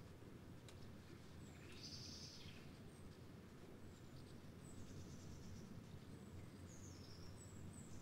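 Small songbirds calling faintly: a string of short, very high, thin chirps, with one longer and slightly lower call about two seconds in, over a steady low background rumble.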